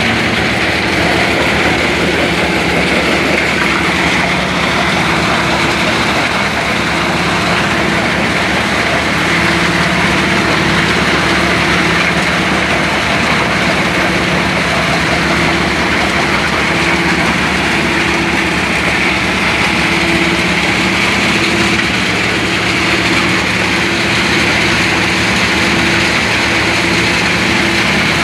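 Stone crusher machine running steadily: a constant loud mechanical din with an engine hum beneath it.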